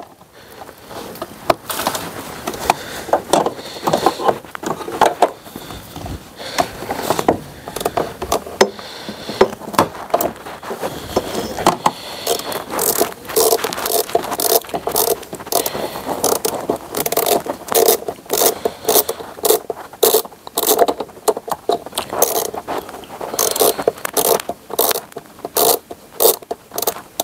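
Socket ratchet clicking in runs as a 13 mm socket on an extension undoes the battery hold-down bolt, with metal scraping against metal. The clicks come thicker and faster in the second half.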